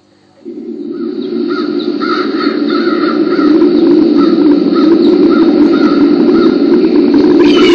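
Loud cawing of birds, crow-like, repeating two or three times a second over a steady rushing noise. It starts suddenly about half a second in and swells louder over the next few seconds.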